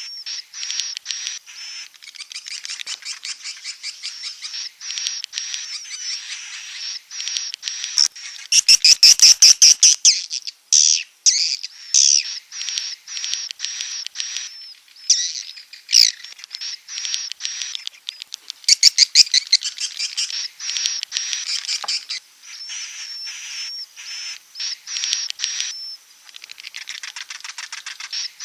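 Swiftlets twittering: rapid trains of high, buzzy chirps that come in overlapping bursts, growing loudest about a third of the way in and again past the middle.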